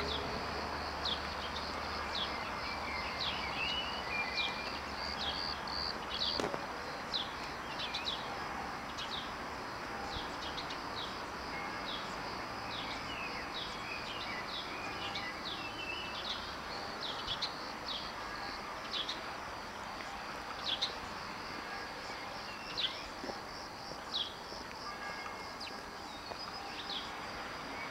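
Small birds chirping over and over, short falling chirps a few each second, over a steady high insect trill.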